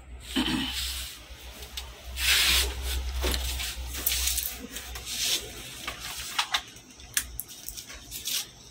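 Handling noise of a Samsung flat-screen TV being lifted, turned over and laid face down on a workbench: the set's frame and back scraping and rubbing against the bench, loudest a couple of seconds in, then a few light knocks as it settles.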